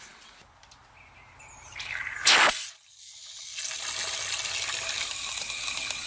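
Water from a garden hose spray nozzle running into a plastic pump sprayer tank to dilute coil cleaner. There is a short loud gush a little over two seconds in, then a steady rush of water from about three and a half seconds on.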